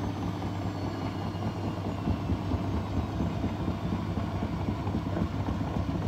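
Grundig front-loading washing machine running with its drum turning: a steady low hum with an even mechanical rumble.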